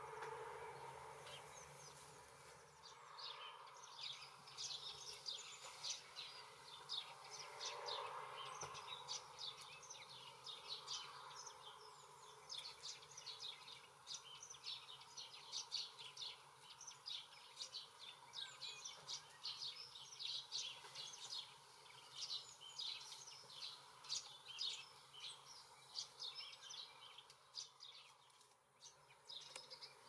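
Faint chirping of small songbirds: many short, high notes in quick succession, starting about three seconds in.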